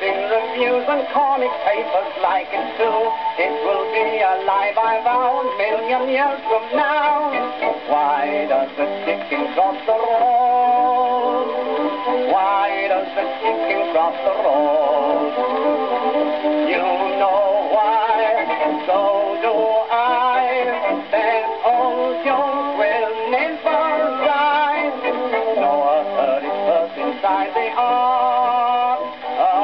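A 1922 Imperial 78 rpm record playing on an EMG gramophone: a male music hall singer performing a novelty song with instrumental accompaniment.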